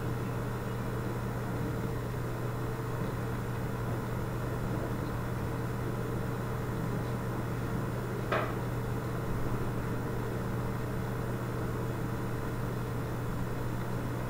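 Steady low background hum from running equipment, with one short faint tap about eight seconds in.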